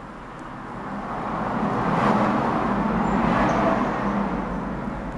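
A road vehicle passing by: a broad rushing rumble that swells over about two seconds, then slowly fades.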